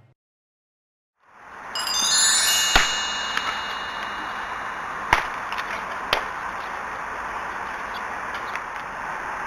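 A chime-like sound effect with many high ringing tones swells in about two seconds in and fades into a steady outdoor hiss, with three sharp clicks over the following few seconds.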